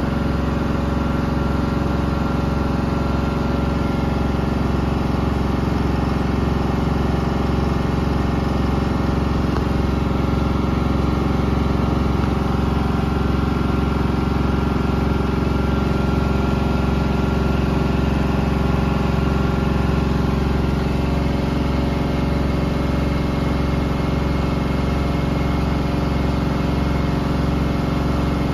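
Bosch VarioPerfect washing machine with EcoSilence Drive brushless motor, running its drum at a steady speed in service mode: a constant hum made of several steady tones, with no rise or fall in speed.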